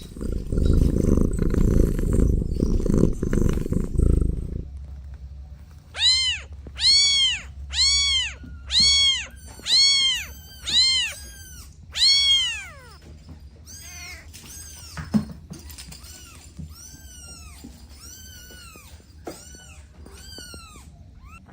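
Kittens meowing: seven loud, high, rising-and-falling meows in quick succession, then a run of fainter, higher-pitched meows. Before the meows comes a few seconds of loud low rumbling.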